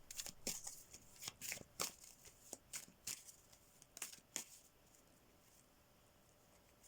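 Tarot cards being shuffled and handled: faint, irregular papery snaps and rustles that stop about four and a half seconds in.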